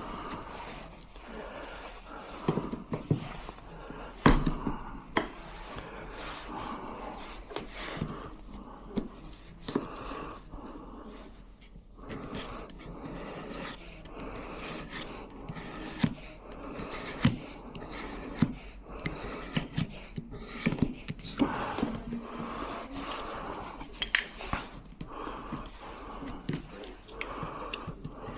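Irregular metal clicks, knocks and scrapes from hand work on door lock hardware, with one sharp knock about four seconds in.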